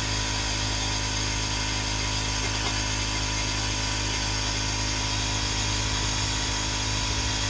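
Gasoline burner of a home-built Tesla turbine combustion system firing steadily on atomized liquid fuel, with its air compressor running: a loud, even rushing noise with a constant hum underneath and no change in level.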